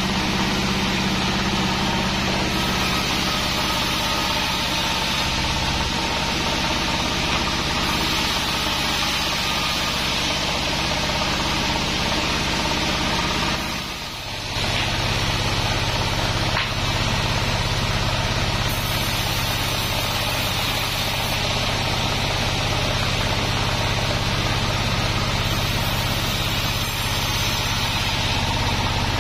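Large band sawmill running steadily as it saws a log, a dense mechanical drone of blade and drive machinery. There is a brief drop in level about halfway through.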